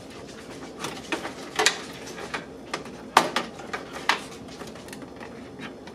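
Irregular clicks and light clatter of cable connectors being pulled off a desktop computer's motherboard and the loose cables handled inside the case.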